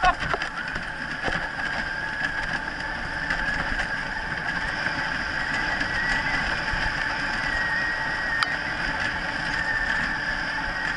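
Wheeled dryland dog-sled rig rolling fast over a dirt forest trail behind a running dog team: a steady rolling rattle with a thin high whine running through it, and one sharp click about eight seconds in.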